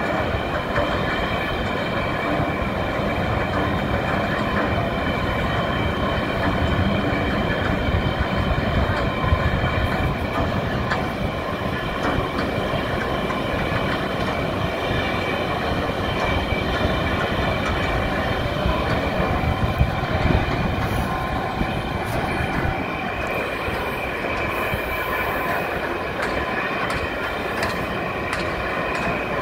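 The movable dam's gate hoist machinery running steadily, a constant rumble with a high steady whine and faint metallic ticks over it, as a dam gate is lowered.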